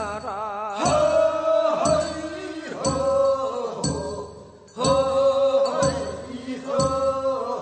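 Singing of a Gyeongsang-province sangyeo-sori, the Korean funeral bier-bearers' chant: four long held chanted phrases starting about two seconds apart.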